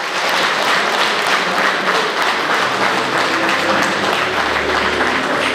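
A large audience applauding steadily, starting abruptly.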